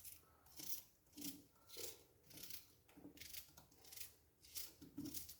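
Quiet kitchen work sounds: a run of short, soft scraping or snipping strokes, about two a second.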